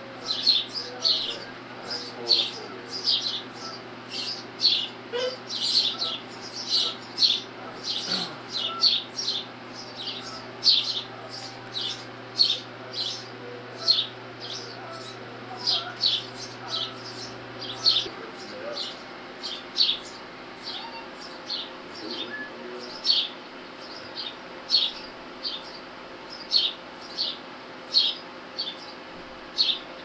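Nestling birds chirping over and over, short high-pitched cheeps about twice a second, with a steady low hum underneath that stops partway through.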